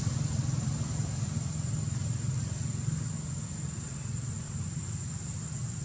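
Low rumble of a distant motor vehicle engine, slowly fading away, over a thin steady high-pitched whine.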